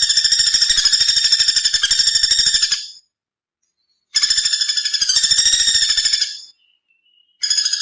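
Woodpecker drumming: rapid rattling strikes with a ringing pitch, in bursts of about two seconds separated by short pauses.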